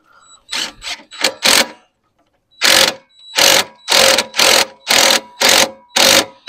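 DeWalt cordless driver with a socket, run in short trigger pulses to spin on and snug a 3/4-inch nut on the tractor's three-point hitch linkage. A few quick blips come first, then, after a short pause, a run of about seven evenly spaced whirring bursts, roughly two a second.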